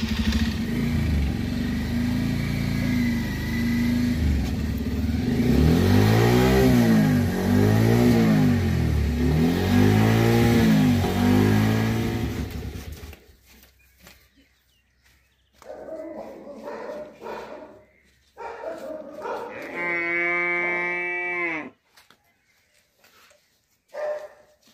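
Motorcycle engine revved again and again, its pitch rising and falling with each blip of the throttle, then cutting off about thirteen seconds in. Quieter scattered sounds follow, with a short pitched call about twenty seconds in.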